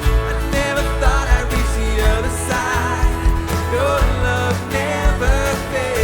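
Live worship band playing and singing: sung vocals over piano, synth, bass guitar and a steady drum beat.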